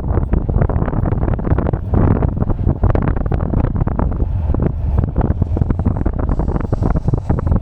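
Loud wind buffeting the microphone of a rider on a moving Rumble Henzo V5 electric bike, a rapidly fluctuating rumble.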